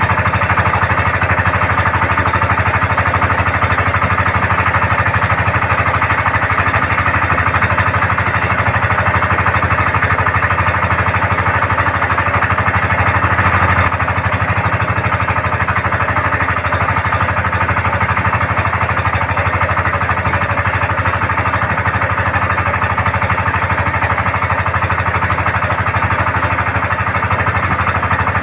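Small boat's engine running steadily with a fast, even chugging, easing slightly about halfway through.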